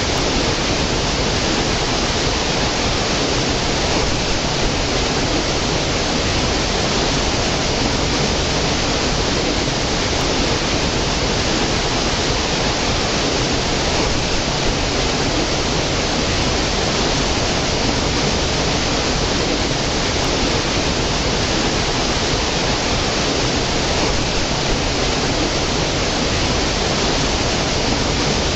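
Small stream cascading over rocks: a steady, even rush of running water with no change in strength.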